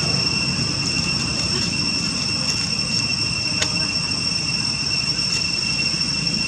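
Steady, unbroken high-pitched insect drone with a low rumble underneath; a single faint click a little past halfway.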